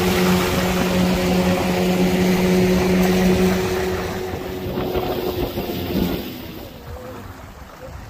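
Outboard motor on a small boat running steadily at speed, with water rushing along the hull and wind on the microphone; the sound fades down about five to six seconds in.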